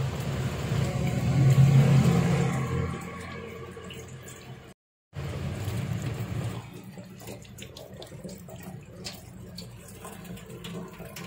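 Tap water running from a kitchen faucet over a tomato rubbed in the hands and splashing into a stainless steel sink. It is loudest in the first few seconds, cuts out briefly about five seconds in, then goes on as a quieter, steady wash.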